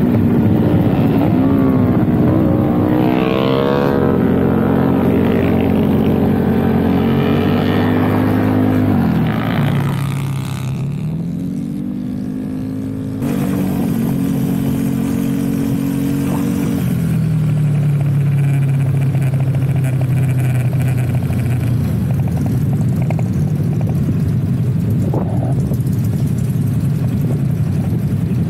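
Motorcycle engine running at low revs while being ridden slowly. Its note falls as the throttle closes about a third of the way in and again past halfway, then settles into a low, steady run.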